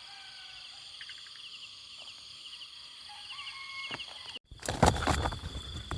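Night chorus of field insects: crickets chirping in quick pulses over steady high trills, with a few faint short calls. About four and a half seconds in the sound cuts out briefly, then loud irregular rustling and knocking noise takes over.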